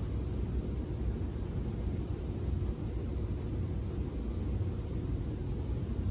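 Steady low rumble with a faint hiss of background noise, unchanging and with no distinct events.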